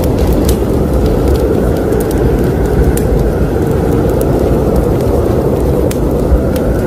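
Wood fire burning in a fireplace: a steady low rush of flames with scattered sharp crackles and pops.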